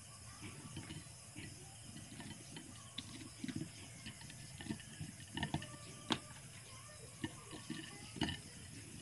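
Faint scattered clicks and scrapes of a metal spoon on a ceramic plate and on crisp fried shredded cassava as margarine is spread over it, the sharpest clicks about three, five and a half, six and eight seconds in.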